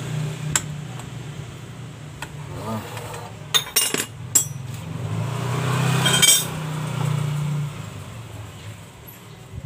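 Metal tools clinking and clanking on the clutch-bell nut of a Yamaha Mio scooter's CVT, with a quick run of sharp clinks about four seconds in and a brief scraping noise about six seconds in, over a steady low hum.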